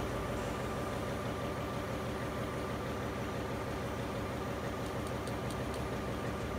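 Steady drone of diesel machinery running in an engine room, an even, unchanging hum with several fixed tones. A few faint high ticks come about five seconds in.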